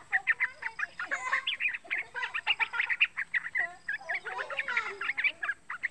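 Young yellow-vented bulbul (trucukan) singing a fast, continuous chatter of short bubbly notes, with lower sliding notes mixed in toward the end.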